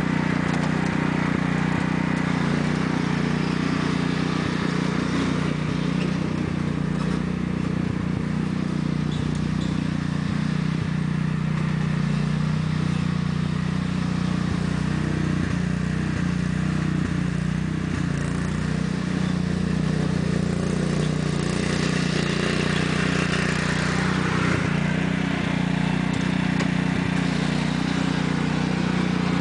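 1993 Sears Craftsman lawn tractor's 14 hp Kohler single-cylinder engine running steadily at high throttle while the tractor is driven on a dirt hill. It turns hissier and brighter about three-quarters of the way through.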